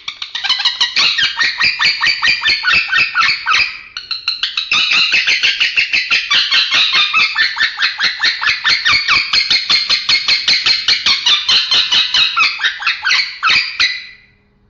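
Male lovebird singing a long chattering song: a fast, unbroken stream of high chirps. It pauses briefly about four seconds in and stops near the end.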